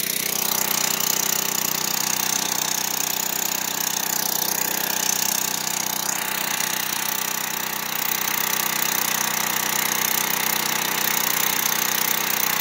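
Craftsman gas pressure washer's small engine running steadily after being pull-started.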